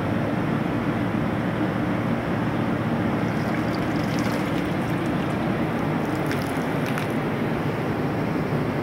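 Water sloshing and splashing in a hydro-dipping tank as a rifle stock is pushed through the film and lifted out, with a stream of water running into the tank, over a steady low drone.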